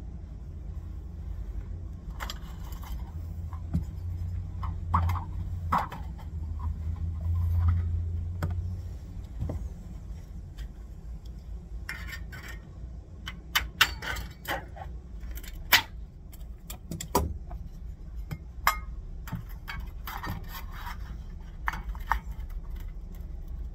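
Thin metal shim stock and hand tools being handled on a workbench: scattered light metallic clinks, rattles and scrapes over a steady low hum, which swells for a few seconds early on.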